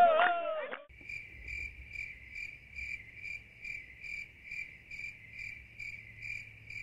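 A group's singing cuts off about a second in. A cricket then chirps steadily, a little over two chirps a second.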